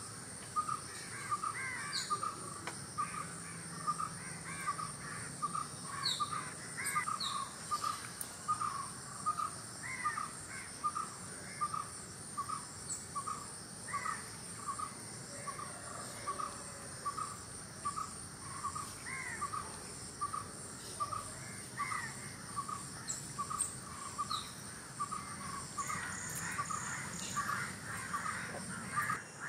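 Outdoor bird and insect chorus: one bird repeats a short, even note about one and a half times a second, other birds chirp now and then, and a steady high insect trill runs underneath.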